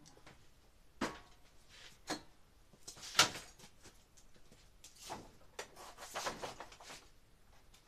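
Workshop items being handled and set down: a few separate knocks and clatters, the sharpest about three seconds in, then a looser run of softer knocks and rustling between about five and seven seconds.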